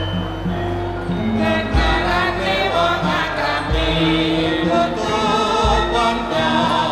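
Javanese gamelan music with a chorus of voices singing, a deep low stroke sounding about every two seconds.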